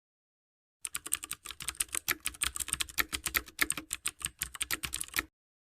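A fast, irregular run of sharp clicks, many per second, that starts about a second in and stops abruptly about a second before the end.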